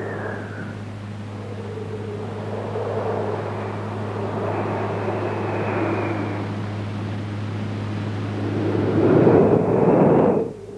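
Strong wind blowing in gusts, with faint whistling tones above it and a steady low hum underneath; the gusts swell louder near the end.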